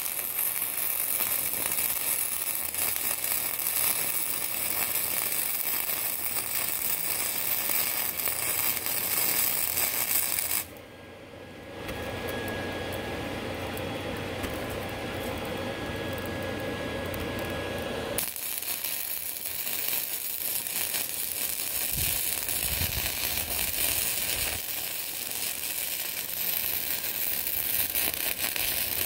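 Stick-welding arc crackling and sizzling as a bead is run over a crack in a cast iron engine block. The arc runs for about ten seconds, breaks off, and a second bead starts about 18 seconds in and runs to near the end, with a duller noise in the gap between.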